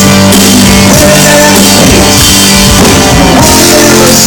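Loud rock music: a band with drum kit and electric guitar playing steadily, with a sung vocal line.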